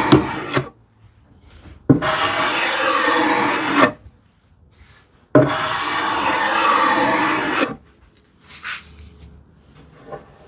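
Small hand plane cutting a chamfer along the edge of a solid cherry panel: the end of one stroke, then two long strokes of about two seconds each, each starting sharply. Quieter scraping and handling sounds follow near the end.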